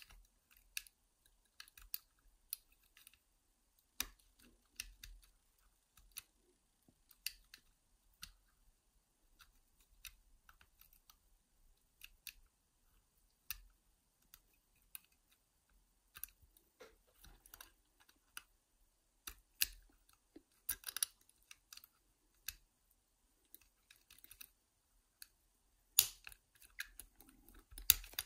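Lock picks scraping and clicking inside a five-lever mortice lock as the levers are worked, in faint, irregular ticks with a busier flurry of clicks about two-thirds of the way through.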